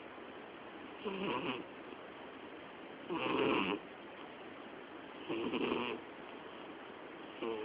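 Domestic cat snoring loudly in deep sleep, four snores about two seconds apart, each lasting about half a second.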